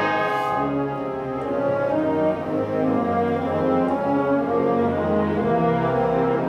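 Concert wind band playing held chords, brass and woodwinds together. The ring of a cymbal crash dies away in the first half second.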